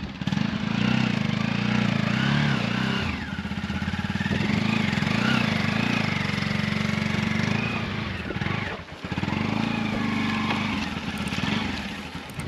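Motorcycle engine running at low speed on a slippery dirt track, its pitch wavering up and down as the throttle is worked. The engine briefly eases off about nine seconds in.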